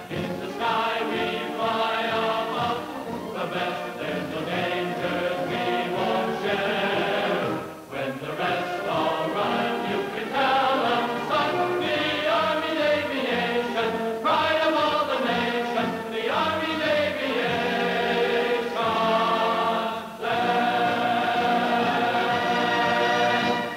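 Orchestral film score with a choir singing, dipping briefly between phrases about a third of the way in and again near the end.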